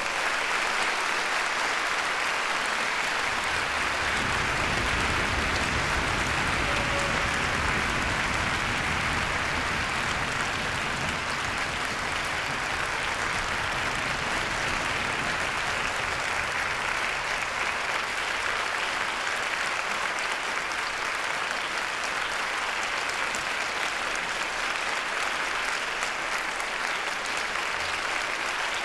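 Audience applauding with dense, steady clapping that swells right at the start and then holds, easing slightly in the second half.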